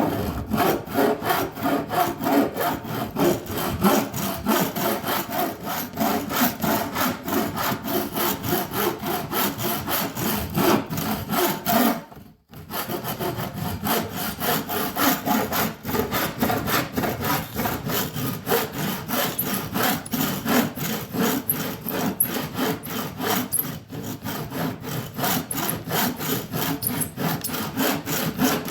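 Handsaw cutting through a 2x4 in fast, even back-and-forth strokes, with a short pause about twelve seconds in before the sawing resumes.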